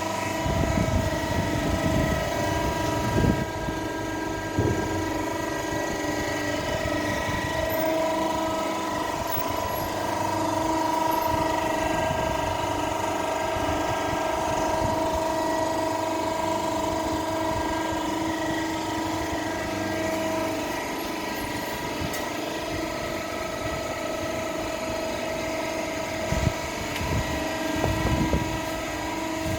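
Automatic horizontal cardboard baler running, with the steady whine of its machinery held on several fixed tones. Occasional knocks and clanks come through near the start and again near the end.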